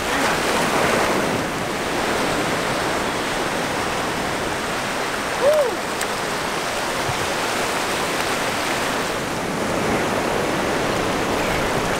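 Ocean surf washing up a sandy beach: a steady rush of breaking waves and swash. A short rising-and-falling call cuts in once about halfway through.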